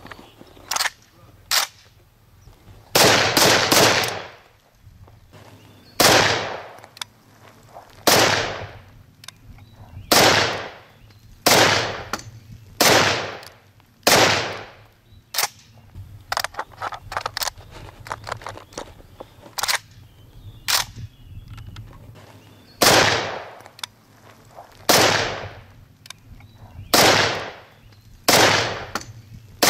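SVT-40 semi-automatic rifle in 7.62×54mmR firing shot after shot, about one every one to two seconds, each loud crack trailing off in an echo, with a quick string of three shots about three seconds in. Fainter, sharper cracks are heard between the main shots.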